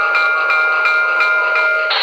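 Locomotive bell from a QSI Maxx Traxx model-train sound system ringing steadily at about three strikes a second, cutting off shortly before the end, over a steady lower background hum.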